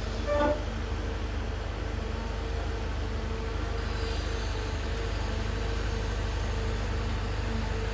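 Diesel engines of heavy construction machinery, a Cat tracked excavator digging with a wheel loader behind it, running in a steady low drone. A brief louder sound stands out about half a second in.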